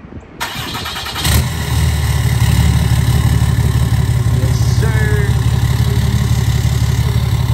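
Cummins diesel pickup engine started at the exhaust pipe: the starter cranks briefly, then the engine catches about a second in and idles steadily and loudly through an exhaust that is no longer stock.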